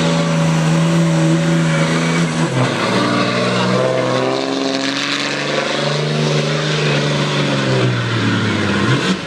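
Pulling vehicle's engine at full throttle hauling the weight sled down the track. Its pitch drops sharply about two and a half seconds in, climbs back up, and falls again near the end.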